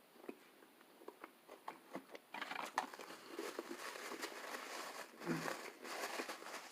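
Quiet eating sounds from a chicken sandwich close to the microphone: scattered small clicks, then from about two seconds in a continuous soft crackle.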